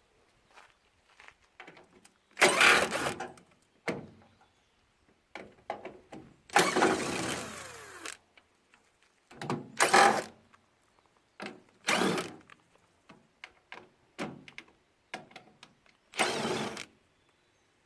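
Five short bursts of a power tool during washing-machine disassembly, one winding down in pitch as it stops, with small clicks and knocks of metal and plastic parts between the bursts.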